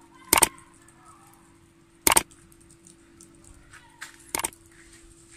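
Three sharp computer mouse-click sound effects, about two seconds apart, clicking the like, subscribe and bell buttons, over a faint steady low hum.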